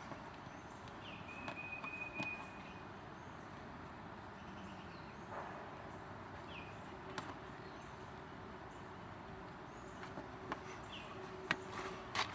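Faint outdoor background hiss with a few short bird chirps, one leading into a held high note, and scattered light clicks or taps.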